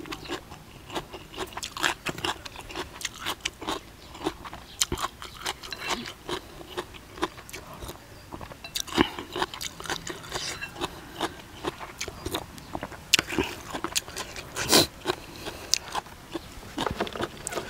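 Close-miked eating: a man biting and chewing crunchy mouthfuls of fresh cucumber and crispy-skinned duck larb, with many short crunches and smacks throughout.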